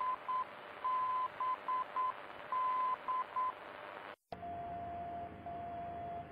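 Radio receiver tuned to a non-directional beacon (NDB): a steady tone keyed in Morse code, long and short elements repeating its identifier over receiver hiss. About four seconds in it cuts to a German time-signal station: a steady lower tone with brief breaks, over hiss.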